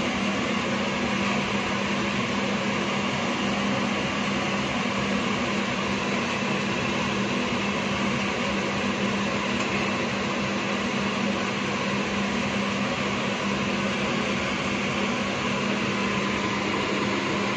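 Steady hum and whir of a fan-type kitchen appliance motor, unchanging, with a constant low tone under it.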